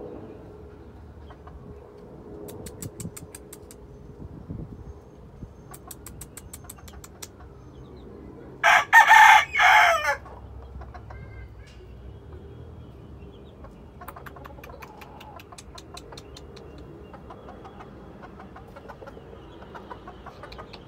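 Blueface Hatch gamefowl rooster crowing once, loudly, about nine seconds in. Softer bursts of quick clucks come before and after the crow.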